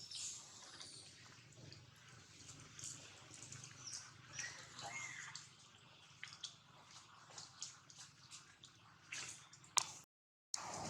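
Monkey eating fruit: irregular small wet clicks and smacks of chewing, with a couple of short high squeaks about halfway through.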